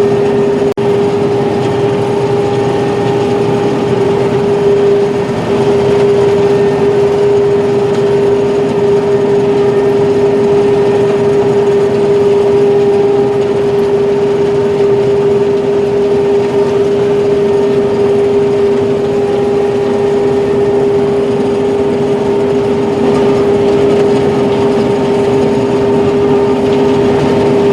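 Combine harvester running steadily while harvesting sunflower end rows: a constant machine drone with a strong, even hum.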